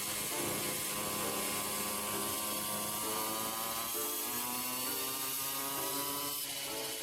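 Pocket bike's small engine running steadily while being ridden, with a buzzing note that drifts slightly in pitch.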